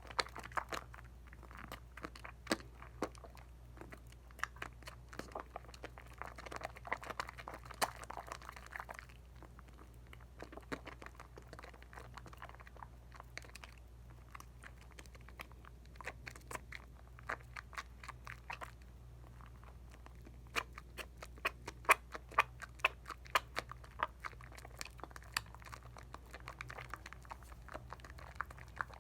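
Lather of Dial coconut bar soap being worked by wet hands: soft squishing with many sharp crackling pops of bubbles. The crackle comes in thicker spells, the densest about two-thirds of the way through.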